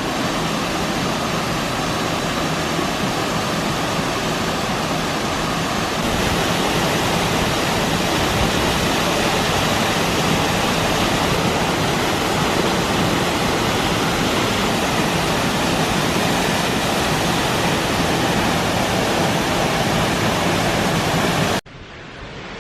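Waterfall pouring into a pool: a loud, steady rush of falling water. It gets a little louder about six seconds in and cuts off suddenly near the end.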